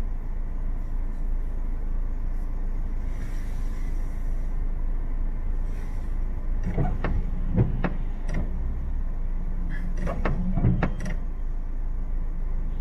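Steady low rumble of idling traffic heard from inside a car waiting at a red light. A short hiss comes about three seconds in. Two runs of sharp clicks and knocks follow in the second half, the first about seven seconds in and the second about ten seconds in.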